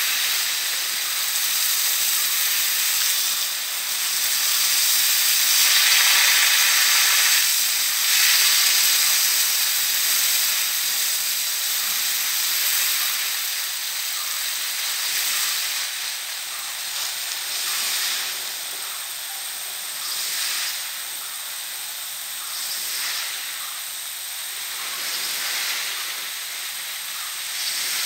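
High-pressure jet sprinkler (rain gun) on a tall riser, throwing a long water jet with a steady hiss. The hiss swells louder about a quarter of the way through, then rises and falls gently.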